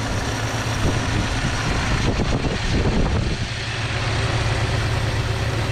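1964 Dodge Dart GT's slant-six engine idling steadily while still warming up, its thermostat not yet open.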